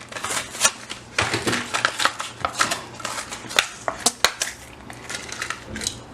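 Hot Wheels toy car's plastic blister and cardboard backing card being opened: irregular crinkling and crackling with sharp snaps and clicks.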